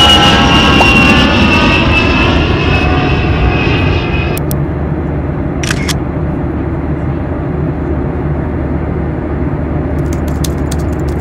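Steady roar of an airliner cabin in flight. For the first four seconds a few high tones glide slowly downward, then cut off abruptly. Sharp clicks come about six seconds in and again near the end.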